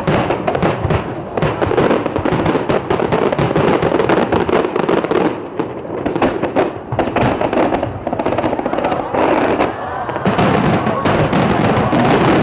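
Aerial firework shells bursting in quick succession: a dense run of booms and crackles, getting louder and more continuous about ten seconds in.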